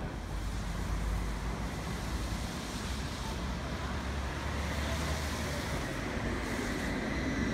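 Tatra T3 tram approaching along a wet city street amid traffic noise. It grows a little louder near the end as it draws close, with a faint high whine.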